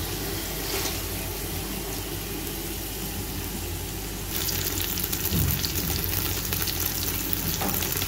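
Pieces of pre-boiled chicken frying in oil in a metal pot: a steady sizzle that grows louder and crackles more from about four seconds in.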